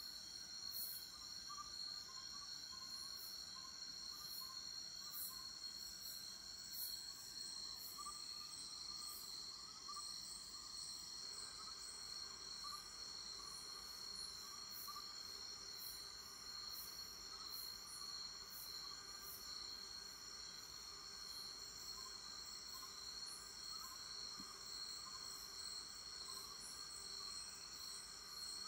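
Insect chorus: several insects trilling steadily at different high pitches, with a very high pulsing call repeating about once a second and fainter chirps underneath.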